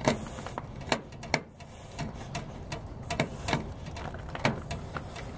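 Irregular small clicks and scrapes of a screwdriver turning a terminal screw on a heat pump defrost board, tightening down a wire.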